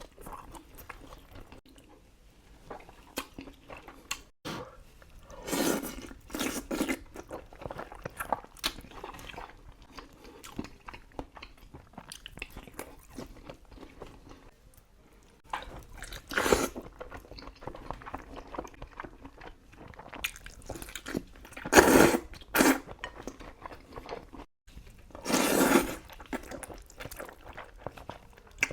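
Close-miked eating of Buldak spicy instant noodles: steady chewing and wet mouth sounds, broken by several louder bursts about a second long.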